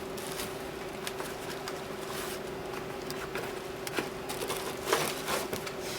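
Packaging being handled and opened: scattered rustles and light clicks, a few sharper ones about four and five seconds in, over a steady low hum.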